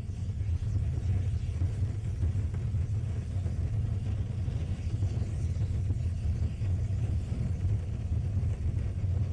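Steady low rumble of an erupting volcano venting a column of ash.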